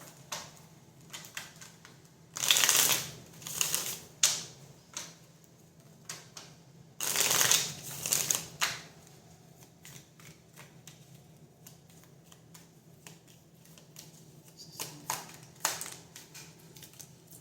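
A deck of tarot cards shuffled by hand in several short bursts, with quieter card handling and light clicks in between.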